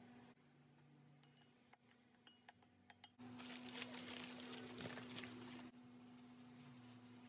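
A few light clicks, then from about three seconds in, paper and plastic wrapping crinkling as it is pulled open by hand. This crinkling is the loudest part and dies down near the end. A steady low hum runs underneath.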